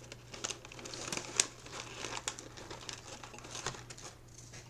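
Plastic snack packaging crinkling and crackling in irregular bursts as it is handled, with a sharper crackle about a second and a half in.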